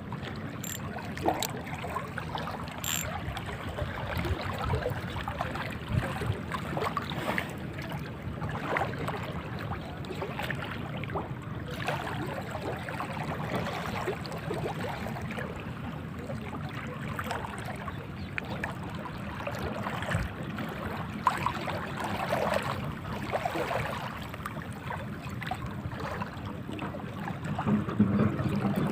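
Steady sea-water lapping and splashing, with scattered faint clicks.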